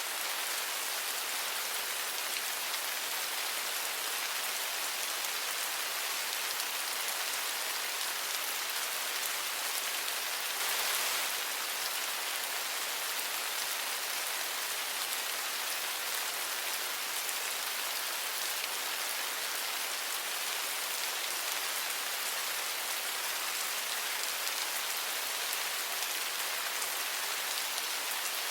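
Steady rain falling, an even hiss of many drops, with a brief slight swell about ten seconds in.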